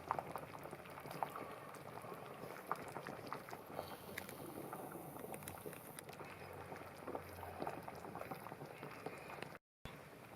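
Pot of ham hock and stock bubbling at the boil in a casserole dish: a faint, steady stream of small irregular pops and bubbling.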